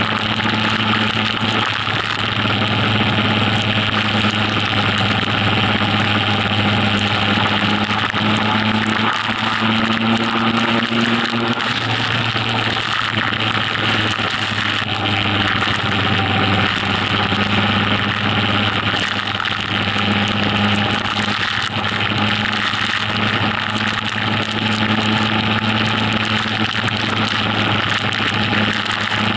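Motorcycle riding at steady motorway speed in a heavy rainstorm: a steady engine note under loud wind and rain noise on the action camera's microphone, with the pitch shifting slightly a few times.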